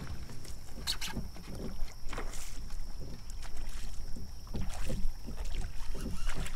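Water slapping and sloshing against a plastic fishing kayak's hull, with low wind rumble and irregular small knocks from the boat and gear being moved while a fish is fought on rod and reel.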